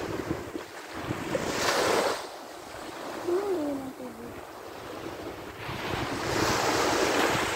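Small waves washing up the beach in two surges, about two seconds in and again near the end, with wind rushing on the microphone.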